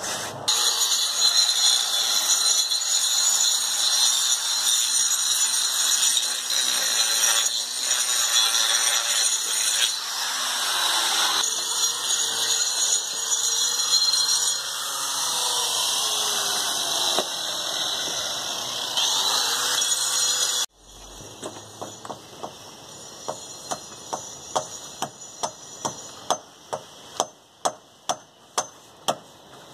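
Paint roller rubbing over a rough stucco wall, a loud steady scratchy scraping. After a sudden cut, the sound is quieter, with regular clicks about twice a second that grow louder.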